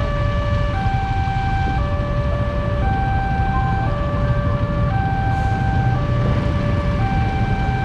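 Railway level-crossing warning alarm sounding a steady hi-lo pattern, two tones alternating about once a second, while the barrier is closed. A low rumble of idling motorcycle engines runs underneath.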